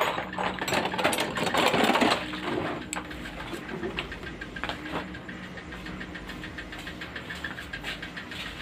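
Suzuki Satria F single-cylinder engine, freshly bored up to 165 cc with a 65.5 mm piston, running after assembly: louder for the first two seconds, then settling to a steady idle.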